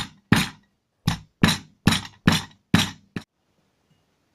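Pestle pounding peeled ginger in a metal hamam dasta (mortar): about eight sharp, ringing strikes at roughly two a second, stopping about three seconds in.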